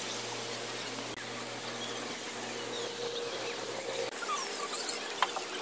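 Steady outdoor hiss with faint bird chirps, then a single sharp tap about five seconds in: a putter striking a minigolf ball on artificial turf.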